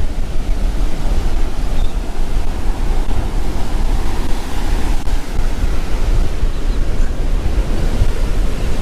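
Strong, gusty storm wind buffeting the microphone through its furry windscreen, a heavy low rumble, over the hiss of rough surf breaking on the beach.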